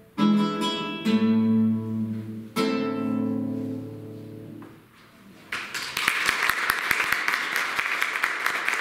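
Classical guitar ending a tarantella with three loud chords, the last left to ring out and fade away. About five and a half seconds in, the audience breaks into steady applause.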